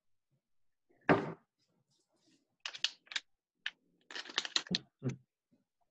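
Clicks and light knocks of small metal RF connectors being handled on a wooden tabletop. There is one sharper knock about a second in, then short runs of rapid clicks.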